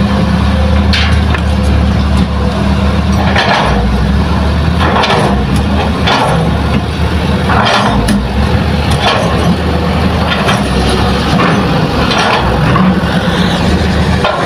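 Diesel engines of Hitachi excavators and dump trucks running at work with a steady low drone, with short rushing noises every second or two over the top.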